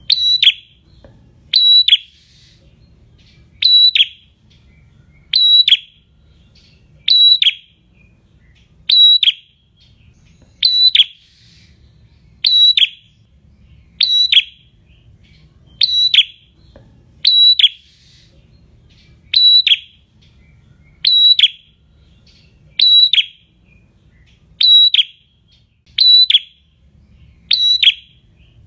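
Caged prenjak, a rufous-headed tailorbird, singing its call over and over: a sharp, high, loud note that drops quickly in pitch, repeated at an even pace about every two seconds.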